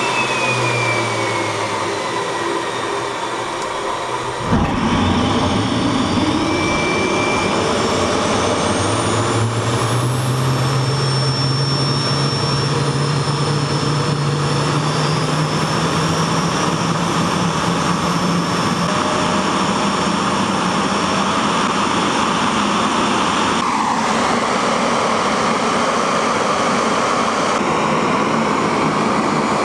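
Homemade kerosene-fuelled turbojet engine starting and running, its exhaust nozzle fitted with an inner cone and flow-straightening vanes. About four and a half seconds in it jumps suddenly in loudness, then a whine climbs steadily in pitch for over ten seconds as it spools up, and it settles into a steady loud run.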